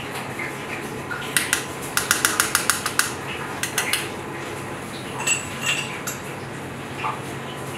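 Metal clinking against a metal canister: a quick run of about ten sharp clicks between one and three seconds in, a couple more just before four seconds, then two short ringing pings a little after five seconds.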